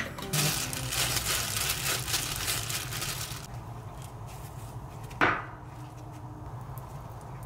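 Kitchen food-preparation handling sounds: rustling for about three seconds, then one short, sharp scrape about five seconds in, over a low steady hum.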